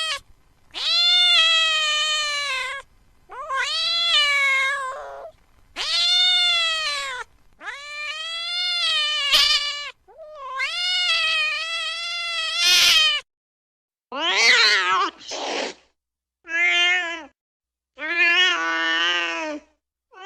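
Domestic cat meowing over and over: about eight long, drawn-out meows of one to two seconds each with short pauses between them, the last few shorter and lower-pitched.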